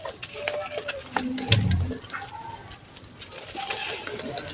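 Dry, gritty sand-cement chunks crumbling and crunching, a rapid run of sharp crackles and grainy crunches, with one heavier, dull crunch about a second and a half in.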